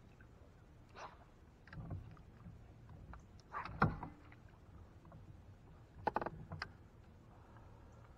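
Scattered knocks and clunks in a small aluminum fishing boat, the loudest a thump just under four seconds in, with a short cluster of sharp clicks around six seconds in, over a faint low hum.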